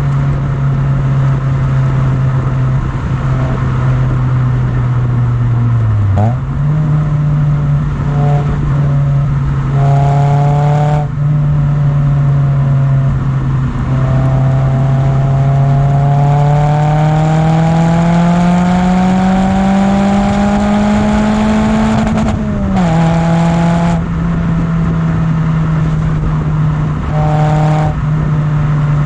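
Toyota Yaris TS four-cylinder engine, warm, breathing through a TRD header and Fujitsubo rear exhaust box, idling steadily with a few short throttle blips. About halfway through it is revved in one slow, steady climb for some eight seconds, then drops back to idle.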